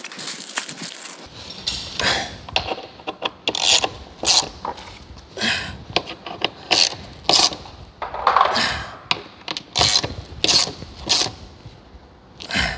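Hand ratchet wrench clicking in a series of short, irregular strokes, about one every half second to a second, as bolts are driven home on a jet ski's side sponson.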